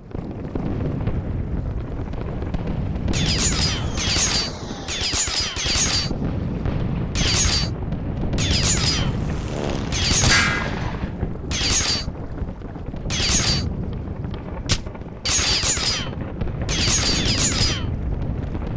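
War-battle sound effects: a constant low rumble of explosions under about a dozen short bursts of gunfire, the loudest near the middle.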